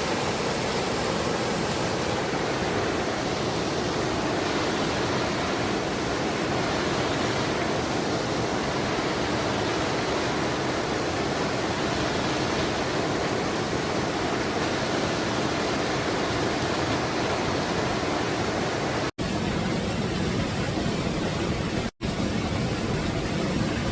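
Steady rushing of water in a mountain stream, cut off for an instant twice near the end.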